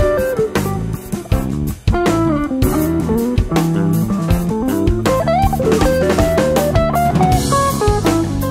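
Small jazz band: an electric guitar plays a single-note melodic line over bass guitar and drum kit, with a cymbal wash near the end.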